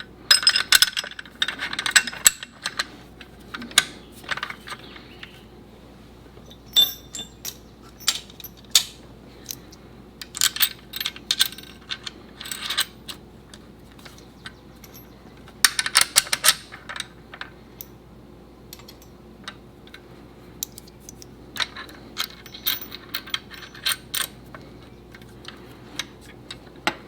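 Steel nuts and bolts clinking against metal brackets as they are handled and threaded on by hand, in scattered bursts of sharp metallic clicks with quiet gaps between.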